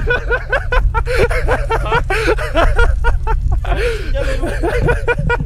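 Men laughing in choppy bursts over a steady low rumble.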